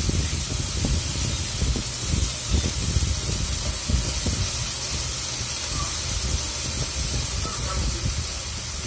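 Minced garlic sizzling in oil in a frying pan: a steady hiss, with irregular dull knocks underneath.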